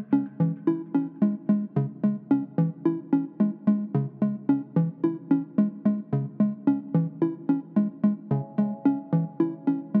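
Background music: a steady run of short, quickly fading electronic notes, about four a second.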